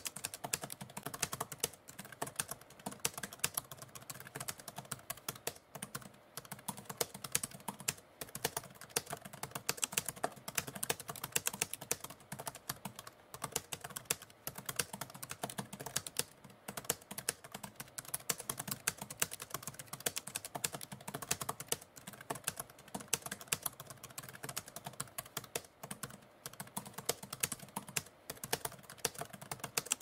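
Typewriter keys clacking in a fast, unbroken run of keystrokes, several to the second.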